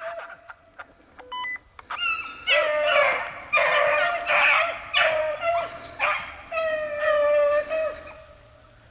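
Pack of beagles baying on a rabbit's scent trail: several hounds giving long, overlapping bawls that start about two seconds in and die away near the end.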